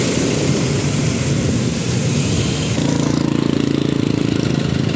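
Motorcycle and car engines running in slow street traffic. About three seconds in, a single engine idling steadily with an even, rapid pulse takes over.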